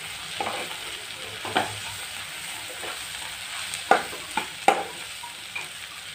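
Sliced onions, garlic, ginger, green chillies and curry leaves sizzling in hot oil in a non-stick kadai as they are sautéed and stirred with a spoon. Several sharp knocks of the spoon against the pan stand out over the steady hiss, the loudest around four to five seconds in.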